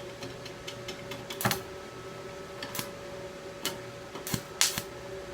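Irregular sharp metallic clicks and taps, a dozen or so at uneven spacing, the loudest about one and a half and four and a half seconds in, over the steady hum of an arc-welding machine.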